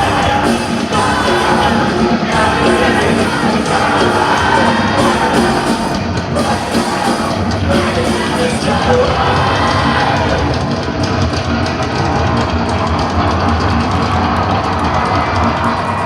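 Loud live rock band playing with sung vocals, with some yelling from the crowd.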